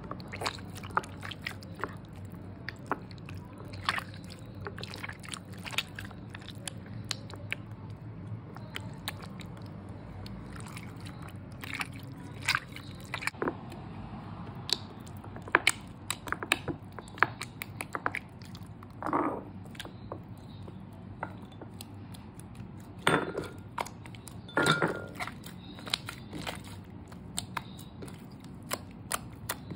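Fingers pressing and squeezing wet, watery slime in a glass bowl: irregular sticky clicks and pops, with a few longer squelches past the middle.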